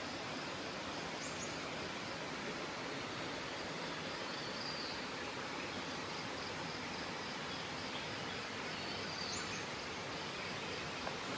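Steady rushing of a forest river, with a few faint, short, high chirps about a second in, near the middle and near the end.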